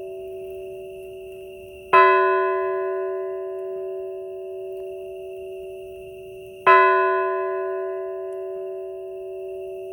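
A rope-pulled church bell tolling slowly: the last stroke is still ringing at the start, and two more strokes come about two seconds in and again nearly five seconds later. Each stroke rings out loudly and then fades slowly.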